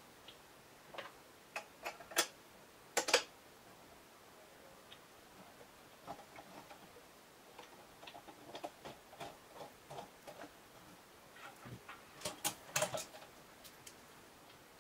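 Scattered light clicks and knocks of an angle grinder's housing being handled into a steel mounting bracket and clamped by hand. The loudest knocks come in two groups, about two to three seconds in and again near the end, with lighter ticks between.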